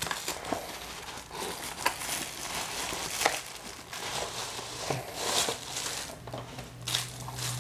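Plastic wrapping and a cardboard box rustling and crinkling as a heavy-duty stapler in a plastic bag is slid out of its box, with scattered taps and scrapes of cardboard. A low steady hum comes in about six seconds in.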